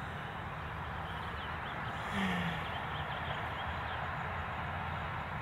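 Rural outdoor morning ambience: a steady background hiss with faint bird chirps, and one brief low falling sound about two seconds in.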